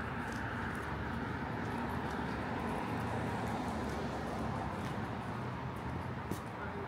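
Steady city traffic hum on a street at night, swelling slightly around the middle as a vehicle goes by, with a few faint light ticks.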